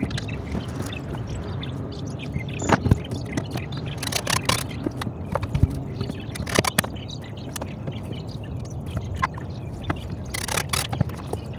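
Scattered knocks, clicks and scrapes of hand and tool work at a small electrical box on a compartment wall, over a steady low hum.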